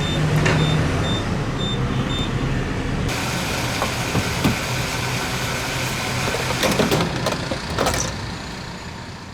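A car on the road: steady engine and road noise with a low hum, growing hissier about three seconds in, with a few knocks, fading out near the end.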